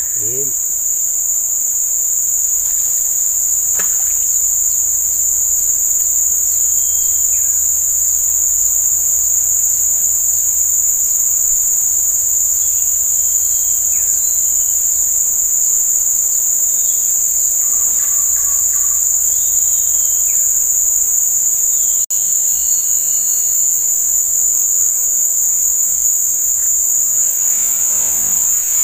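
A chorus of insects giving a steady, loud, high-pitched drone, with a second, higher hiss layered above it and a few faint short chirps here and there.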